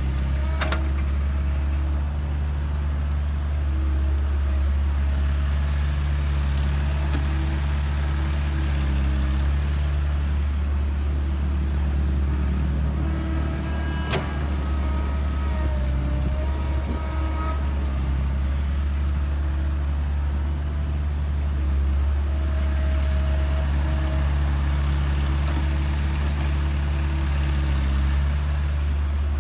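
Kobelco excavator's diesel engine running steadily, its note shifting from span to span as the machine works under load while loading sand. Two sharp clicks, about a second in and midway.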